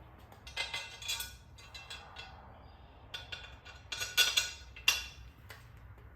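Small metal parts clinking and knocking as they are handled, in scattered clusters of light clicks and clatters, the sharpest about four to five seconds in.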